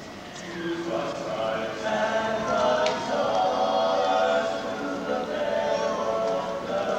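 A small vocal ensemble singing together in harmony, with long held notes, swelling louder over the first couple of seconds.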